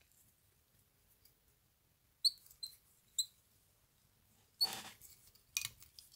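Fly-tying handling noises at the vise. About two to three seconds in come three short, high squeaks or clicks. Near the end a brief rustle and another click follow as a hand reaches in to start the thread on the hook.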